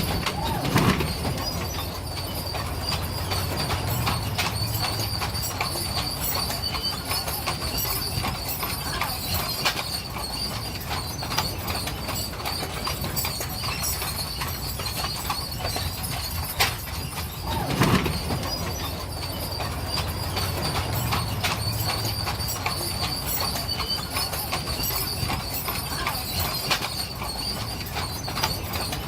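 Horse-drawn stagecoach rolling along: horses' hooves clip-clopping and the coach rattling over a low, steady rumble of the wheels, with a thin high steady whine throughout. Two louder knocks come about a second in and about 18 seconds in.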